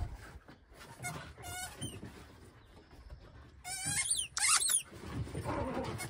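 Squeaky ball toy squeaking as a dog chews it: a few short high squeaks about a second in, then a quick run of sharper squeaks about two-thirds of the way through. Dull scuffling of dogs' paws on wooden deck boards follows near the end.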